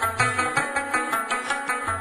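Background music: South Asian folk-style tune with fast plucked strings over a steady low drum beat.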